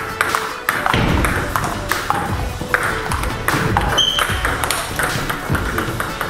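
Table tennis rally: a run of sharp clicks as the ball is struck by bats and bounces on the table, over background music.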